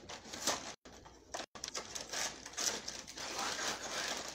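Rustling and crinkling of a cereal box and the plastic wrapper of a toy prize as it is dug out and handled, broken by two brief dropouts about a second in.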